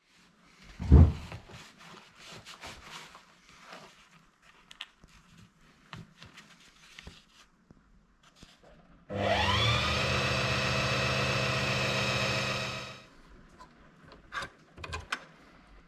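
Heavy sail cloth rustling and being handled, with a sharp thump about a second in. Then a Singer Heavy Duty 4411 sewing machine's electric motor runs for about four seconds: it starts abruptly, its whine rising as it spins up, holds steady, then winds down. A few small clicks of the machine being set up follow near the end.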